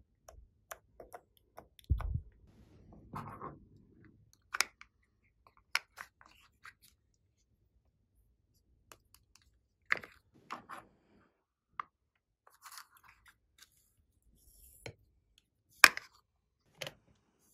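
Small plastic containers being handled and opened over slime: scattered clicks and taps, a soft thump about two seconds in followed by a brief crackling rustle, and a sharp click near the end.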